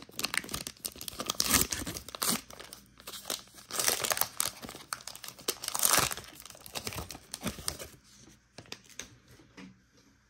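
The plastic wrapper of a Panini Illusions basketball card pack crinkling and tearing as it is pulled open by hand, loudest in three bursts, then quieter handling for the last couple of seconds.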